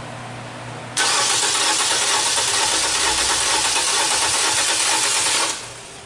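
2014 Nissan Versa's HR15 four-cylinder engine cranked on the starter for about four and a half seconds, starting about a second in, spinning steadily without catching. It is a crank-no-start with no spark, because the ignition is getting no trigger signal.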